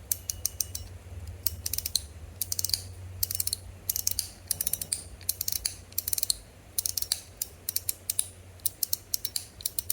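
Top B metal EDC fidget being worked by hand, its parts snapping back and forth to give sharp metallic clicks in quick irregular clusters.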